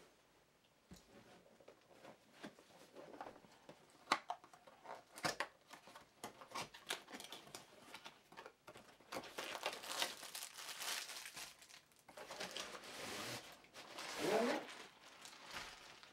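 Packaging being handled: plastic wrapping crinkling and cardboard rustling as a softbox studio-light kit is unpacked by hand, with scattered sharp clicks and knocks as parts are set down.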